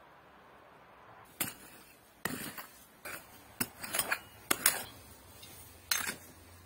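Small metal hand rake digging into dry, stony soil: its tines scrape through the dirt and clink against pebbles in about eight sharp, irregular strokes.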